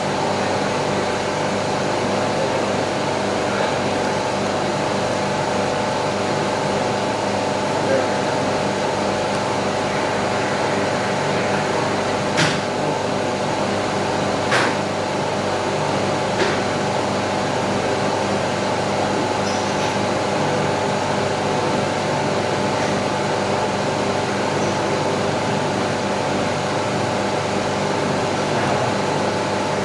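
Steady murmur of a crowd over a constant mechanical hum, with a few sharp cracks near the middle.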